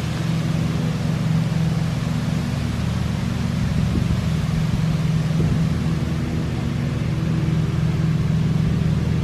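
A steady low engine-like hum with a hiss over it, holding level throughout.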